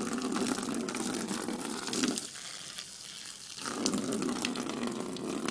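A stream of water pouring from a pipe and splashing onto the ground, louder in two spells with a quieter dip of about a second and a half near the middle.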